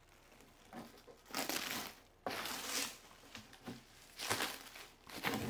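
Clear plastic protective wrap crinkling as it is pulled off a resin 3D printer's tinted UV cover, in several irregular bursts with short quiet gaps between.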